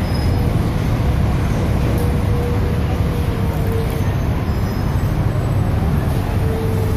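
Steady low rumble of road traffic on a busy city street at night, with a faint held tone for the first few seconds and again near the end.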